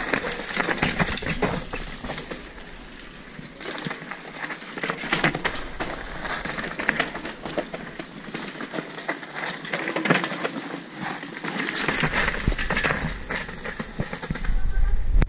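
Loose stones and gravel crunching and clattering on a rocky dirt trail, as irregular clicks and crackles throughout. A loud low rumble comes in on the microphone near the end.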